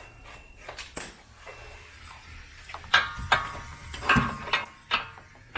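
Metal hand tools and sockets clinking and knocking together in irregular single strikes, a few of them ringing briefly.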